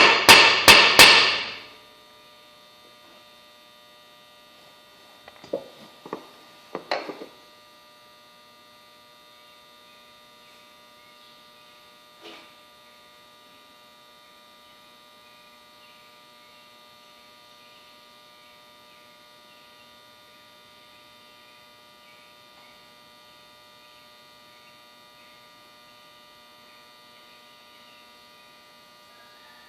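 A hammer tapping four times in quick succession, followed a few seconds later by several softer knocks, then a steady electrical hum with a few fixed tones.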